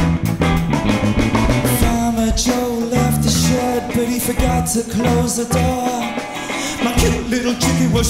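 Live blues band playing an instrumental passage: electric guitar, bass guitar, drum kit and keyboard, with a steady beat.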